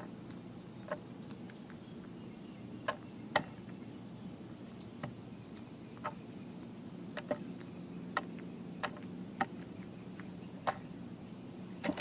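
Crow pecking cat-food kibbles off a wooden platform feeder: about a dozen sharp beak taps and clicks on the boards, spaced irregularly about a second apart. At the very end comes a flap of wings as it takes off.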